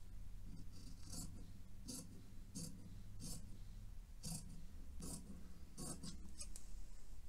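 Tailor's shears cutting thin sheer fabric in short repeated snips, about eight of them, roughly one every 0.7 seconds, trimming close along a stitched hem fold.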